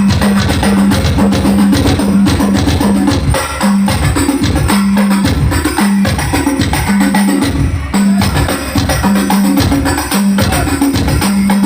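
Hadroh percussion music played loud through a large stacked 'horeg' sound system during a sound check: quick hand-drum strokes and jingles over a heavy low bass note that pulses in a repeating pattern.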